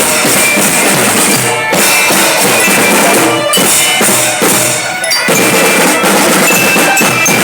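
Drum band playing, with snare and bass drums beating under a melody line.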